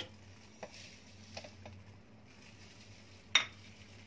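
Small kitchen handling sounds over a faint low hum: a few faint taps as sugar is added from a bowl to a plastic blender jug, then one sharp clack about three and a half seconds in as a dish or the lid is handled on the counter.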